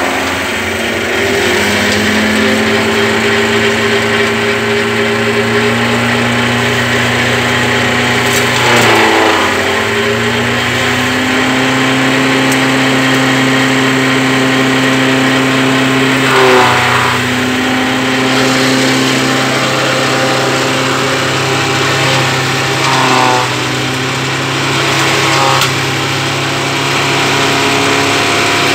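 Tractor-driven rice-straw chopper running at speed, its cutter rotor and the tractor engine making a steady drone. Several times the pitch briefly sags and recovers as straw is fed in and chopped.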